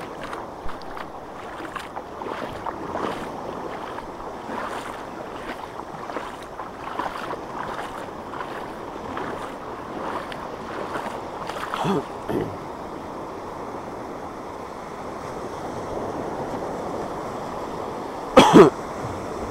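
Surf washing on a sandy beach, with wind, as a steady rush. Faint scattered ticks and rustles run through it. Near the end comes a sudden loud double burst, the loudest sound.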